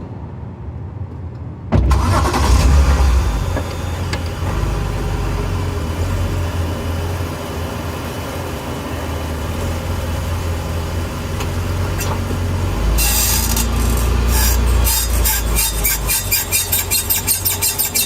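2012 BMW 328i's inline-six engine starting about two seconds in, then running, heard from under the car. From about 13 s a high squeal comes in and soon pulses about four times a second as the car accelerates: the rear squeak that the owner suspects is the differential dust cap rubbing on the diff, or the differential itself.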